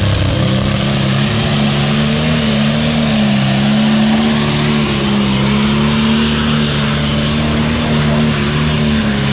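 Pulling tractor's diesel engine at full throttle hauling a weight-transfer sled down the track, a loud, steady high-revving note that wavers only slightly in pitch.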